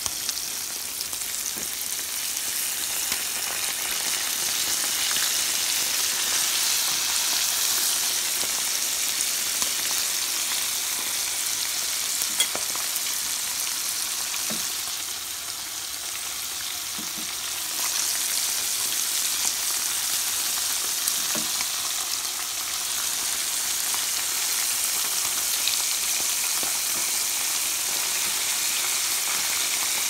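Green peppers, eggplant slices and tomato rounds frying in hot oil in a pan: a steady sizzling hiss with scattered small pops. The sizzle drops a little for a couple of seconds about halfway through.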